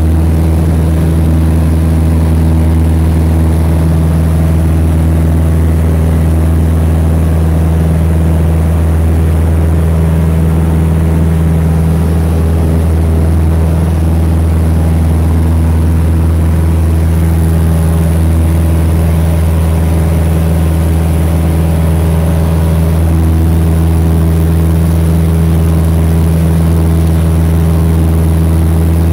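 Light aircraft's piston engine and propeller running steadily in cruise flight, a loud, even drone heard from inside the cabin.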